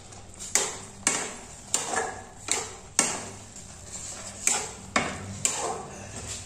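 A spatula stirring thick cooked oats in a frying pan, knocking and scraping against the pan about every half second at an uneven rhythm as chopped coriander is mixed in.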